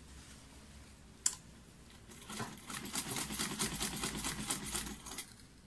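Sewing machine stitching a fabric strap in a burst of about three seconds: a fast, even clatter of the needle mechanism. A single sharp click sounds about a second in, before the stitching starts.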